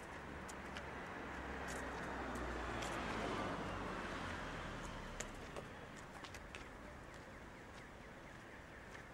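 A car passing on the street: its noise and low rumble swell to a peak about three seconds in, then fade away. A few light clicks sound over it.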